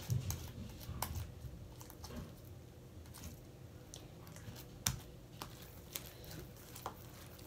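Overactivated glitter slime being squished and pulled between the hands, with soft sticky squishing and scattered small clicks, the sharpest about five seconds in.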